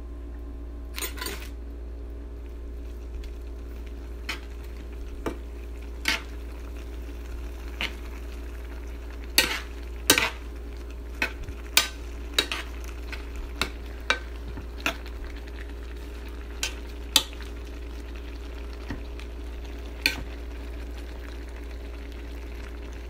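A spoon stirring a pot of spicy seafood noodle soup, clinking and knocking against the pot at irregular intervals, with a busier run of knocks midway. A steady low hum runs underneath.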